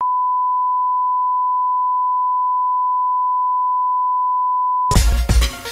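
A steady, pure electronic beep tone held unbroken for about five seconds. It cuts off suddenly near the end as music with a strong beat comes in.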